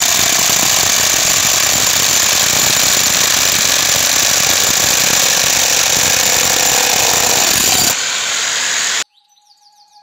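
Electric demolition hammers chiselling into a concrete slab, a loud, dense, continuous hammering. It thins about eight seconds in and stops abruptly a second later.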